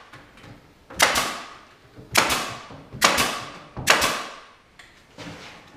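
Nails being driven into plywood cabinet parts: four loud, sharp strikes about a second apart, each fading quickly, then a weaker one near the end.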